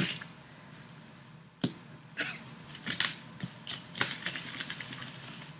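Scattered taps, clicks and scrapes at irregular intervals as a delivered shipping package is handled and opened.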